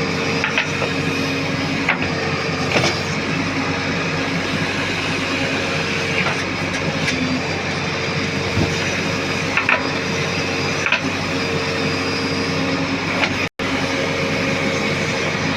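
Diesel engine of a JCB backhoe loader running steadily under work, with scattered metallic knocks and clanks from the machine.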